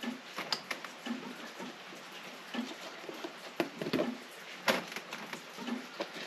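Scattered light clicks and taps of small metal parts being handled as a window lock mechanism is greased and fitted together by hand.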